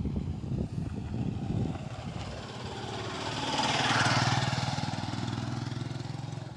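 A motor engine running steadily, with a rushing noise that swells to its loudest about four seconds in and then fades.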